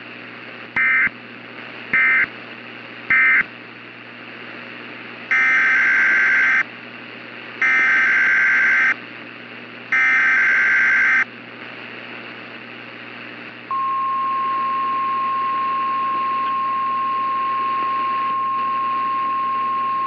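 NOAA Weather Radio EAS signalling: three short digital data bursts, then three longer SAME header data bursts, then the steady single-pitch Weather Radio warning alarm tone for about seven seconds, over a low radio hum and hiss. The sequence announces that a new warning is about to be read.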